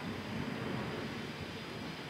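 Distant jet airliner on its landing approach: a steady low rumble.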